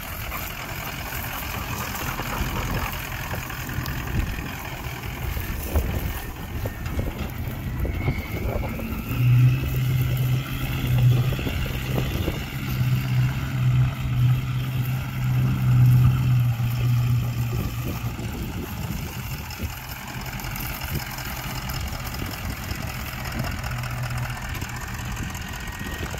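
2003 Ford F-250 pickup's engine running, with a steady low hum that grows louder about a third of the way in, holds for several seconds and then eases off.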